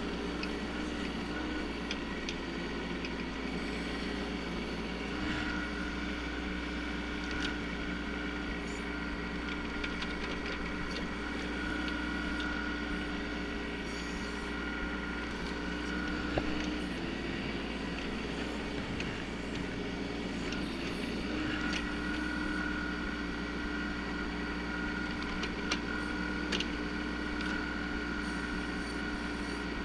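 Bobcat 418 mini excavator running under steady load while digging, its small diesel engine droning evenly. A higher steady whine comes in about five seconds in, drops out around sixteen seconds and returns around twenty-one seconds, with a few light knocks scattered through.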